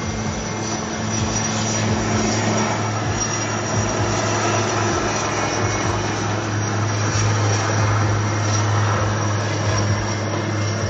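Air Force helicopter flying overhead: a steady, low rotor and engine drone with faint rhythmic blade thumps.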